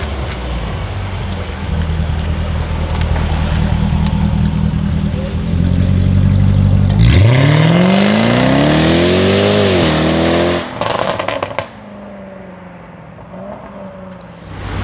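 Jaguar F-Type SVR's supercharged 5.0-litre V8 running at low revs, then accelerating hard with the engine pitch rising steeply for about three seconds. On lift-off the exhaust gives a short burst of crackles and pops, and the car's sound drops away.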